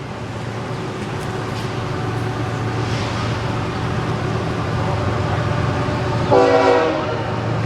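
Freight train running past with a steady rumble that slowly grows louder. About six seconds in, the locomotive's horn gives one short blast.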